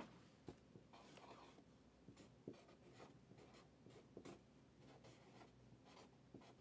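Felt-tip marker writing on a cardboard box: a run of short, faint strokes.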